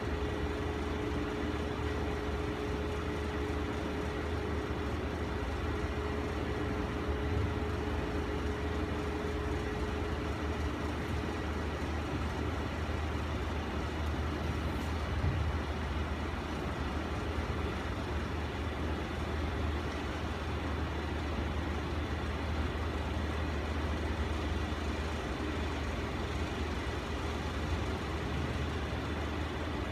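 Steady low mechanical hum with a light hiss, and a faint steady whine that fades out about ten seconds in. A single soft knock comes about fifteen seconds in.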